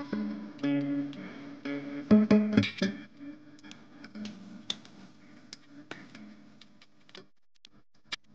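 Guitar music that is loud for about the first three seconds and then fades low. Through the rest, a wire whisk beating batter in a ceramic bowl gives sharp irregular clicks and taps against the bowl.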